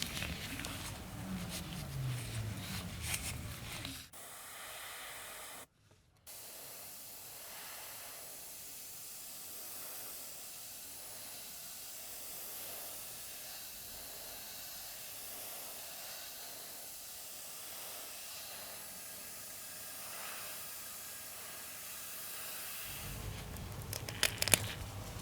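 A steady hiss, mostly high-pitched, with a few sharp clicks near the end.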